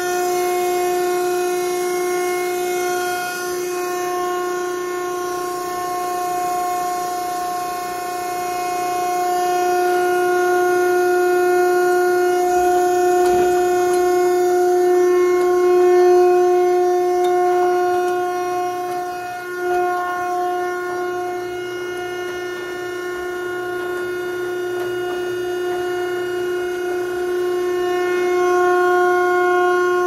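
The hydraulic power unit of an SP Industries VB-60 vertical cardboard baler running, a steady droning whine with a few even overtones that swells and eases slightly but holds its pitch.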